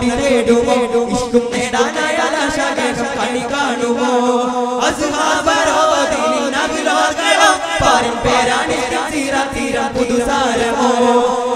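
Daff muttu performance: a group of male voices chanting a song together over the rhythmic beating of daffs, hand-held frame drums.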